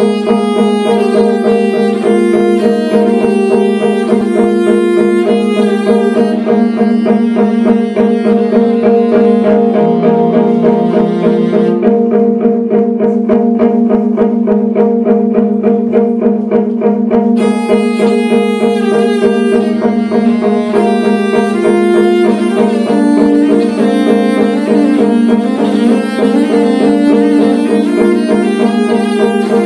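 Slow live jazz: a cello bowed on a long held low note, with repeated plucked electric guitar notes over it and light ticking percussion. The higher plucked notes drop out for several seconds in the middle while the cello drone carries on.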